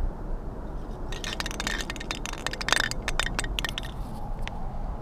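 Aerosol spray-paint can being shaken, its mixing ball rattling in a quick run of sharp clicks for about three seconds, over a low steady rumble.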